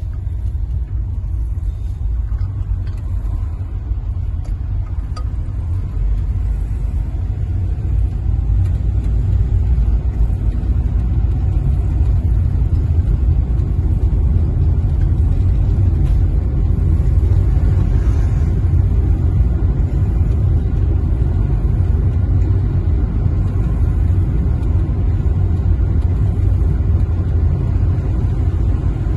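Low, steady road and engine rumble heard inside a moving car's cabin. It grows a little louder about eight seconds in.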